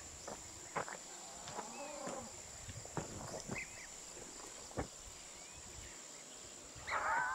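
Steady high-pitched drone of insects, with scattered footsteps on a gravel path. A short burst of a person's voice comes in near the end.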